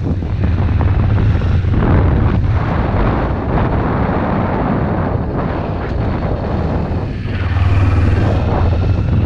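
Kawasaki Ninja sport bike's engine running under way, a steady low drone mixed with wind rushing over the microphone. The engine gets a little louder about eight seconds in, as the bike leans through a turn.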